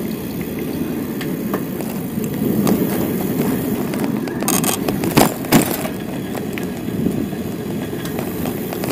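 Steady low rumble of a bicycle ride, with two sharp knocks or rattles about five seconds in.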